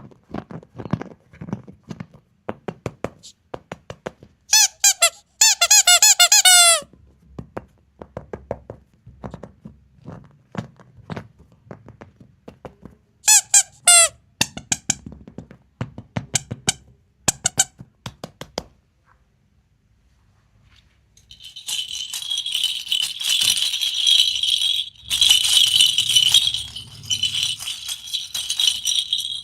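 Hands handling surprise eggs and their plastic and candy packaging: a run of small clicks and taps, with two bursts of high squeaking about five and thirteen seconds in. From about two-thirds of the way through comes a dense, high rattling and crinkling that breaks off briefly once.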